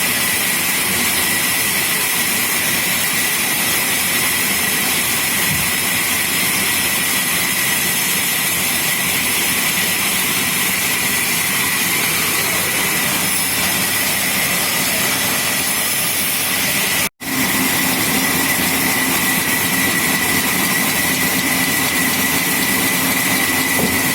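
Sawmill machinery running steadily: a constant loud whir with a steady high whine over it, briefly cutting out for an instant about two-thirds of the way through.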